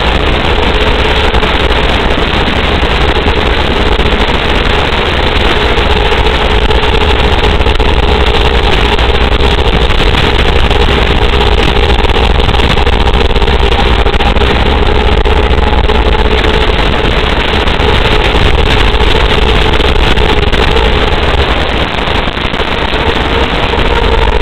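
Quadcopter motors and propellers running in flight, heard from on board: a steady, loud whine holding close to one pitch over a heavy rushing noise.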